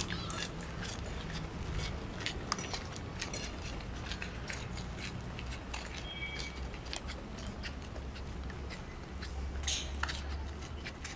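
Footsteps crunching irregularly on a dry dirt path scattered with dead leaves, over a steady low rumble. A short high chirp sounds about six seconds in.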